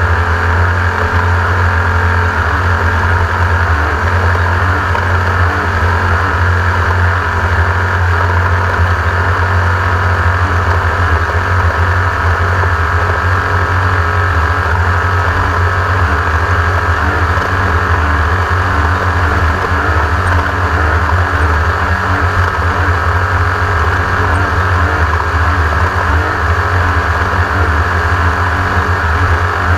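Engine of a Class 1600 off-road race car, an air-cooled Volkswagen flat-four, running at a steady, unchanging pace without revving up or down.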